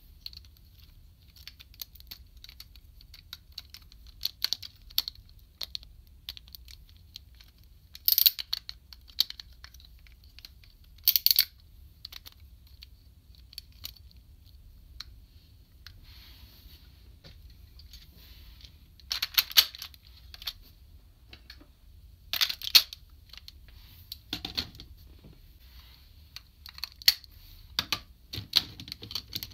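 Hard plastic parts of a DX Kerberios Sentai robot toy clicking, clacking and snapping into place as it is transformed and combined by hand. A scatter of small clicks is broken by several louder clusters of clacks.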